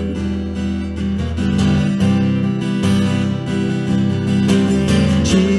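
Acoustic guitar strumming sustained chords with no singing: the instrumental gap between sung lines of a worship song.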